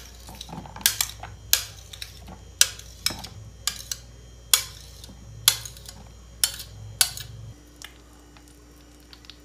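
A kitchen utensil clinking and knocking against a bowl, about once a second, as chopped tomato and garlic are scraped into it. The clinks stop about seven and a half seconds in, leaving a few faint ticks.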